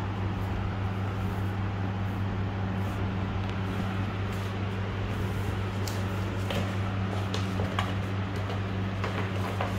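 Steady low mechanical hum, with a few light taps and scrapes in the second half from kittens scuffling with a small cardboard box on a marble floor.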